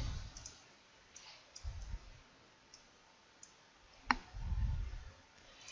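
Computer mouse clicks: a few faint ticks and one sharper click about four seconds in, with a couple of soft low-pitched thuds between them.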